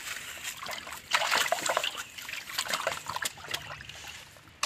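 Live pond fish flapping and splashing in a steel bowl of water: a string of short splashes and sloshes, the loudest cluster about a second in.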